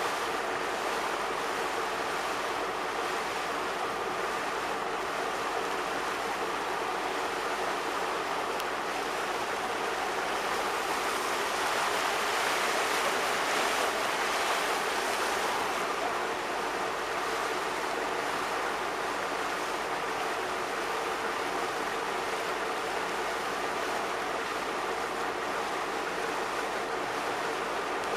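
Steady rushing noise outdoors by open water, swelling a little around the middle, with a faint low steady hum underneath.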